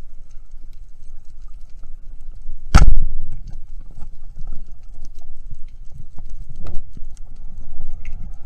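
Underwater, a speargun fires once with a loud, sharp clack about three seconds in, followed by a short low rumble. Steady low water rumble and faint crackling ticks run under it.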